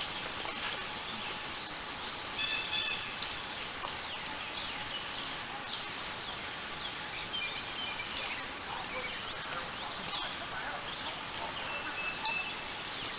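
Spring woodland ambience: songbirds give short chirps and calls now and then over a steady outdoor hiss, with a few faint clicks.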